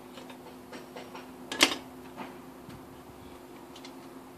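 Scattered metallic clicks and taps of hand tools on the engine's bottom end, with one sharp clank about one and a half seconds in and a softer one just after, over a steady low hum.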